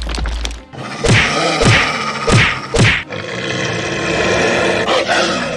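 Background music with cartoon sound effects over it: a low rumble at the start, then four quick falling swoops between about one and three seconds in.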